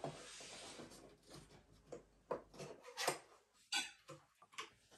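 Piano cabinet parts being handled and fitted back in place: about a second of scraping, then a few sharp knocks and clicks.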